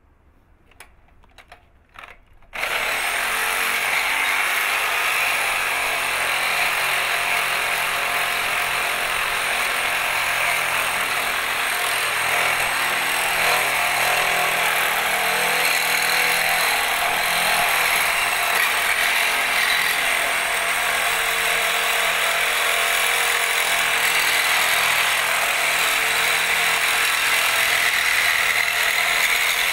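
Reciprocating saw with an Irwin blade starting up about two and a half seconds in and then cutting steadily through a metal pipe held in a vise.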